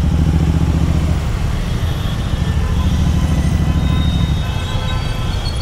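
Royal Enfield Continental GT 650's parallel-twin engine idling through an aftermarket Code 6 exhaust, a steady low rumble.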